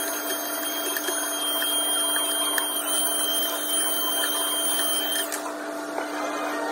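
Small handheld electric blower running with a steady high whine and hiss as it blows grounds out of a coffee grinder, switched off about five seconds in.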